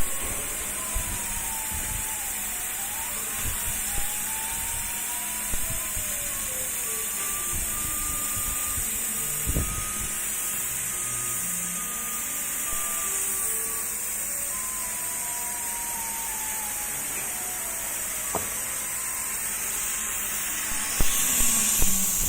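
Motors of a 1325 CNC laser cutting machine whining as the head moves, their pitch gliding smoothly up and down as it traces curves, over a steady hiss. A few light knocks, and a louder rougher noise comes in near the end.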